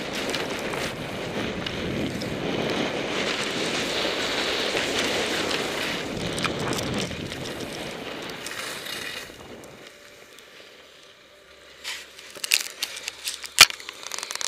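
Wind rushing over a helmet camera's microphone with skis scraping over snow on a downhill run. The rush dies away about ten seconds in as the skier slows, and a few sharp knocks follow near the end.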